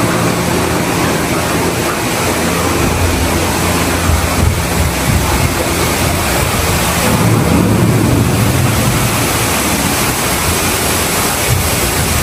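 Steady, loud rushing of falling water from the rainforest scene of Epcot's Living with the Land boat ride, with a low rumble underneath.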